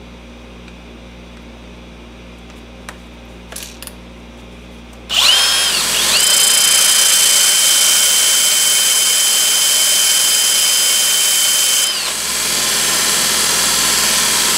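A few faint clicks as a cordless drill's chuck is tightened on a steel pin, then about five seconds in a belt grinder starts running with a loud hiss. At the same moment the drill spins up with a steady whine as it turns the pin against the belt to grind a point on it; the drill stops near the end while the grinder keeps running.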